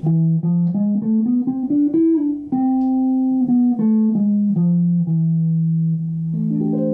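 Clean electric guitar playing a single-note scale run that climbs for about two seconds and steps back down. It spells the harmonic-minor sound over E7, the fifth mode of A harmonic minor (E Phrygian dominant). Near the end it settles on a low note, and a chord rings out over it.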